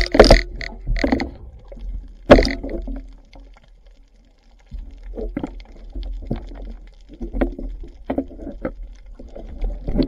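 Underwater clicks and knocks as a wooden speargun and its shooting line are handled, over a steady low rumble of water against the camera. The loudest knocks come at the start and at about two and a half seconds, with smaller scattered clicks in the second half.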